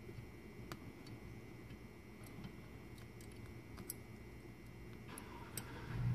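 A few faint, irregular metallic clicks as the valve keepers are picked out by hand from a compressed valve spring on an LS cylinder head.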